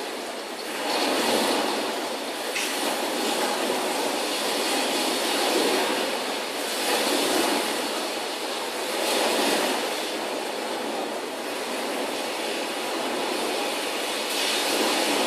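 Loud rushing noise with no clear pitch, swelling and easing every couple of seconds, like a train going by.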